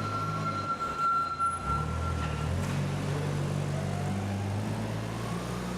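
A motor vehicle's engine running, its pitch shifting. A steady high tone stops about two and a half seconds in, and a rising whine comes near the end.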